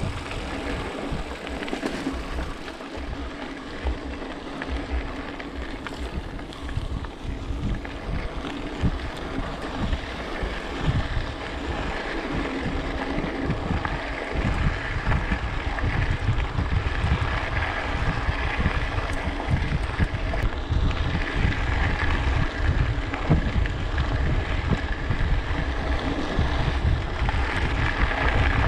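Wind rushing over an action camera's microphone while riding a mountain bike, with a low rumble of tyres on the trail that grows louder about halfway through.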